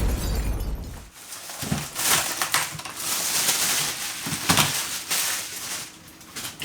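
Packaging being handled and unwrapped, with an irregular crinkling and rustling that swells and falls in quick handfuls.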